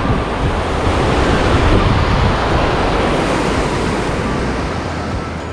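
Wind buffeting the microphone: a steady, loud rushing noise with low rumbling gusts.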